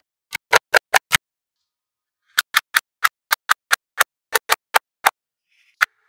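Small magnetic balls snapping into place, a run of sharp, short clicks about five a second, with a pause of about a second near the start before the clicking resumes.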